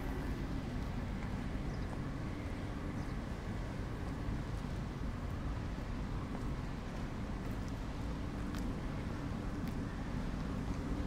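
City street ambience: a steady rumble of traffic with a constant low hum running through it, and a few faint ticks.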